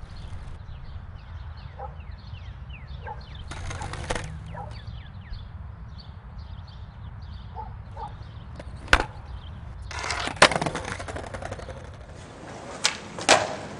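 Open-air plaza ambience with small birds chirping in many short falling chirps, then skateboards on paving stones: a sharp snap about nine seconds in, a louder clack with a rough roll of wheels a second later, and two more sharp snaps near the end.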